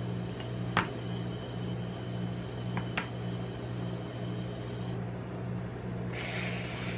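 Metal tongs click twice against a paper cup of ice cream rolls over a steady low hum. Near the end a whipped cream aerosol can sprays with a hiss for about a second.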